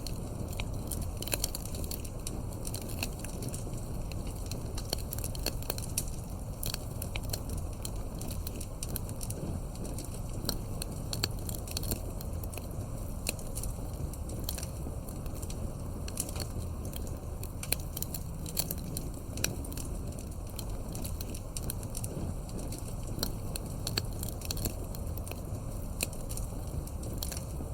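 Wood fire crackling: frequent irregular sharp pops and snaps from burning logs over a low, steady rumble of the flames.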